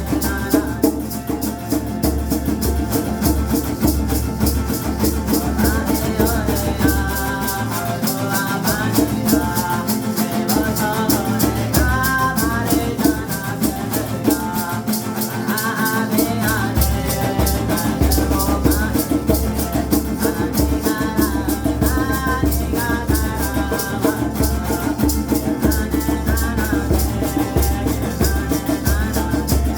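Ceremonial chant sung to a maracá rattle shaken in a steady, even rhythm.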